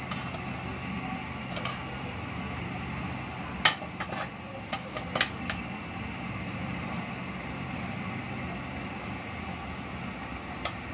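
A plastic ladle stirring string beans and pork in an aluminium pot, knocking sharply against the pot several times from about three and a half to five and a half seconds in, and once more near the end. A steady hum runs underneath.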